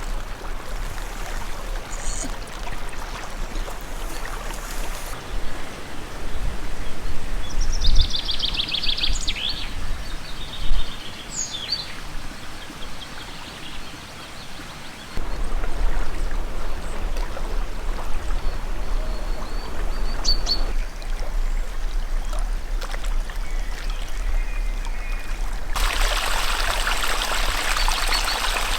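Wild birds singing, a trilling song and a few short chirps, over a steady wash of running water. Near the end this gives way to a louder, brighter rush of water.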